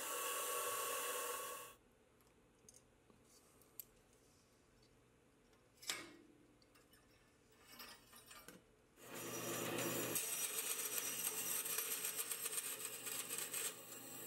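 A CNC mill cutting aluminium plate stops about two seconds in. A few light metal clinks and a sharp knock follow as the plate is handled. From about nine seconds a band saw cuts steadily through the aluminium tabs holding the machined parts to the stock.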